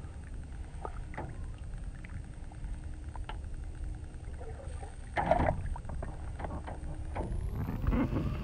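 Water splashing and sloshing as a bass is released by hand at the surface, with a louder splash about five seconds in as it kicks away. A steady low rumble runs underneath.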